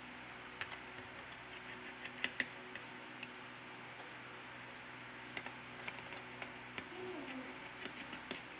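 Light, irregular clicks and taps of small repair tools on a smartphone's internal parts and screws during disassembly, coming in scattered clusters, with the two sharpest about two seconds in.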